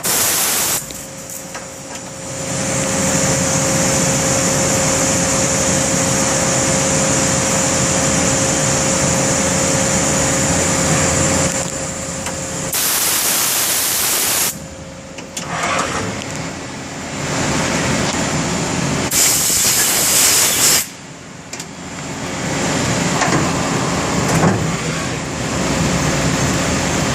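1997 Cincinnati Milacron Avenger 200S CNC lathe running through a cycle: a steady whine with a rough machining noise beneath it. It is broken by loud hissing bursts lasting a second or two, near the start, about halfway through, and again a few seconds later.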